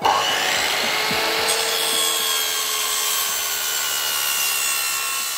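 Metabo sliding mitre saw cutting through a bundle of wooden strips: the motor and blade make a steady whine over a rasping cut, and the pitch sags slightly as the blade works through the wood.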